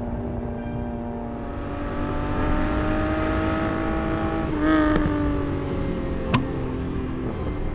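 1971 Datsun 240Z's L-series straight-six running under load on the road, its note climbing steadily as the car accelerates. About four and a half seconds in there is a brief louder surge, then the note eases off, with a single sharp snap about six seconds in.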